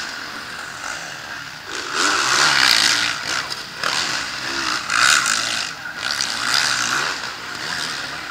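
Motocross race bikes passing on the dirt track, their engines revving hard and swelling and fading as they go by, loudest about two, five and seven seconds in.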